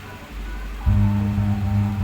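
Music played through a sound system being checked: quiet at first, then a loud, deep bass line comes in about a second in.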